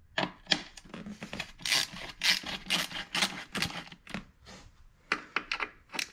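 Ratcheting screwdriver clicking in quick, irregular runs as it backs a screw out of chrome seat trim, with some scraping against the metal.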